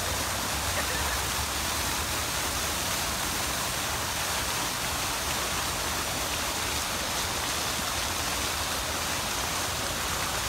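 Steady rush of running or falling water, even and unbroken throughout.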